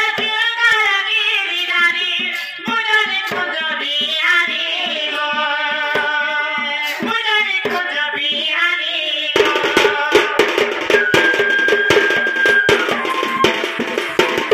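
A folk song for a danda nacha performance: a singer's voice with light accompaniment for most of the first nine seconds, then about nine seconds in a sudden break into fast, dense drumming with a held melody note over it.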